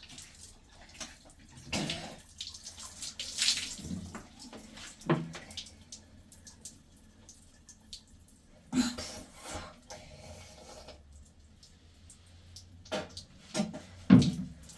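Water being poured and splashed in several short, irregular bursts, the loudest near the end.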